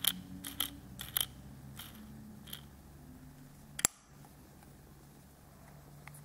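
Small plastic Kinder Surprise treasure-chest toy handled in the fingers: a run of light plastic clicks and taps, then one sharp snap a little past the middle as its hinged lid is shut.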